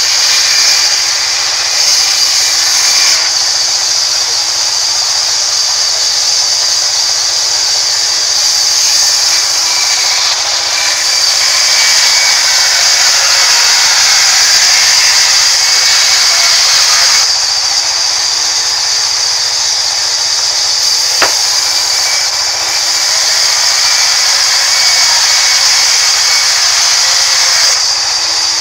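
Sawmill band saw cutting lengthwise through a rain tree log, a loud, steady, high-pitched whine of the blade in the wood that swells and eases slightly as the cut goes on. One sharp click a little past two-thirds of the way through.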